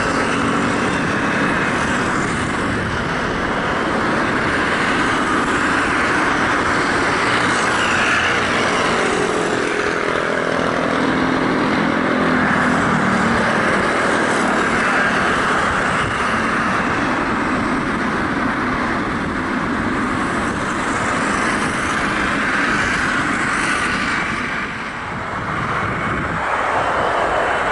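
Boeing 777-300ER's GE90 turbofans running at taxi power: a steady jet hiss and whine, with a passing pitched engine sound rising and falling about ten seconds in.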